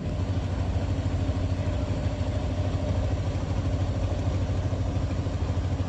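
A small river fishing boat's engine running steadily, with a rapid, even beat.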